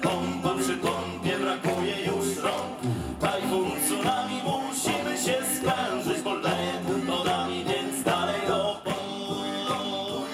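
Male a cappella shanty group singing in close harmony over a steady beat, all voices and no instruments.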